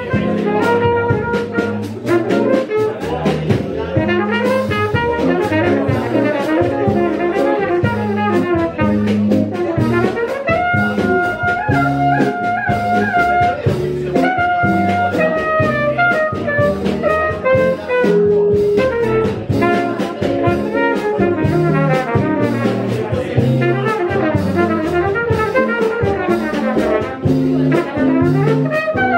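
Jazz quartet playing live: a trumpet leads with a melodic line of held and moving notes over archtop guitar, walking double bass and drums with steady cymbal ticks.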